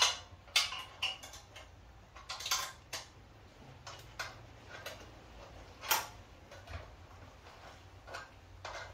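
Irregular small metal clicks and clinks, a dozen or so sharp ones of varying loudness, as hardware and tools are handled and fitted on the steel frame of an electric log splitter during assembly.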